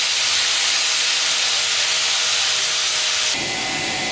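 Hand-held angle grinder grinding a hardened spring-steel punch to bright metal, a loud steady grinding hiss with a high whine, so the temper colours will show. It cuts off about three and a half seconds in, leaving a quieter steady whirring hiss.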